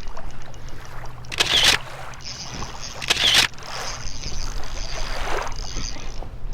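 Fishing kayak on the water: a steady low hum under a noisy hiss, with two short, louder rushes of noise about a second and a half apart.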